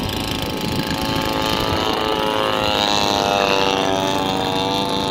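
Radio-controlled model triplane flying overhead, its motor and propeller droning with a steady pitch that bends and swells slightly as it passes close. Wind buffets the microphone underneath.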